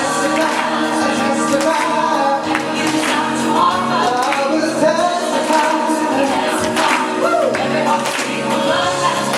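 Gospel pop song playing, with singing and choir-like backing vocals over the accompaniment.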